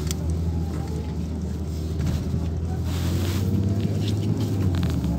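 Inside a moving LiAZ 5292.67 city bus: the engine and road noise make a steady low drone, with a brief hiss about three seconds in.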